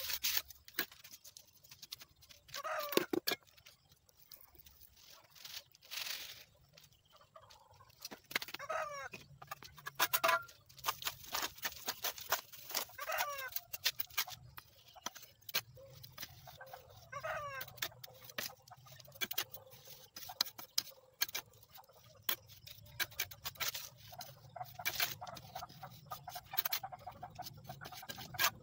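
Steel trowel scraping and tapping in repeated short clicks as it levels sand and scoops cement mortar from a metal pan, spreading it onto a packed sand form. A chicken calls four times, a few seconds apart.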